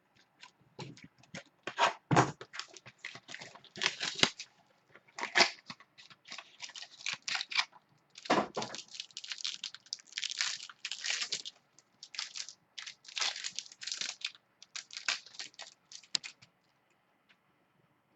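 Trading card pack wrappers being torn open and crinkled, in many irregular rips and rustles that stop about two seconds before the end.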